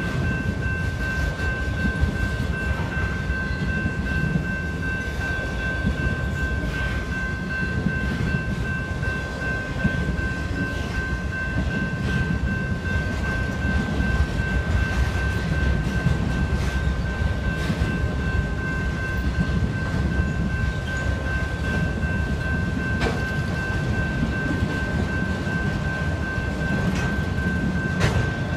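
Freight train of autorack cars rolling steadily through a grade crossing: a continuous low rumble of wheels on rail with occasional clacks over rail joints. Over it, the crossing's General Signals Type 2 electronic bell rings without pause at one high, steady pitch.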